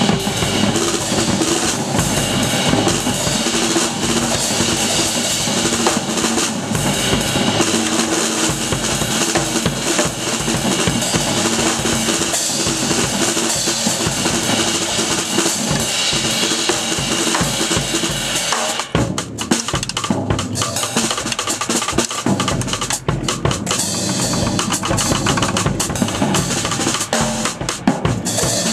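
Acoustic drum kit played with sticks: bass drum, snare and tom strokes under ride and hi-hat cymbals, in a busy, continuous groove. About two-thirds of the way through the cymbals thin out for a few seconds and the drums come to the fore, then the cymbal wash returns.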